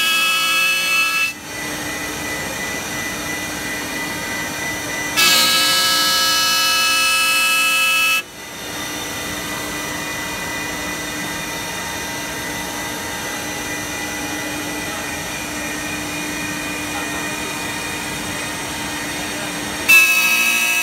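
CNC wood lathe running with a steady machine hum, broken by loud, high whining passes of a few seconds each: one at the start, one about five seconds in lasting about three seconds, and another near the end.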